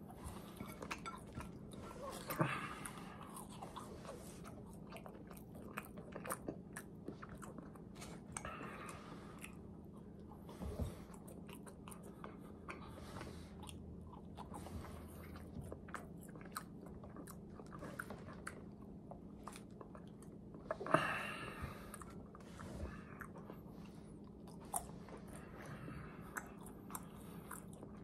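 Close-up chewing and biting of a crispy fried chicken sandwich (McDonald's McCrispy): steady crunching and wet mouth clicks. Louder crunching comes about two seconds in and again about three-quarters of the way through. A faint steady hum runs underneath.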